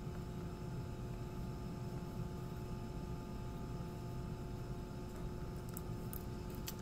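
Steady low hum of room tone, with a few faint clicks near the end as wires and connectors are handled.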